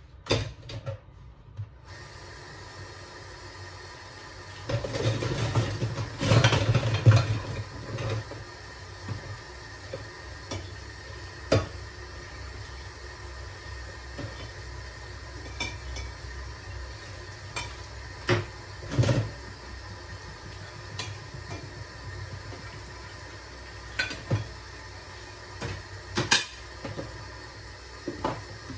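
Dishes and cutlery clattering and clinking as they are handled at a kitchen sink, with a louder, busier stretch about five to eight seconds in and scattered single clinks after it.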